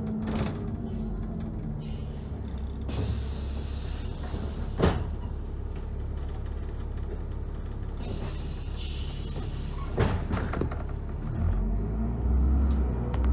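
Dennis Trident double-decker bus under way, its engine a steady low rumble heard from on board, with a few sharp knocks along the way. The engine grows louder near the end.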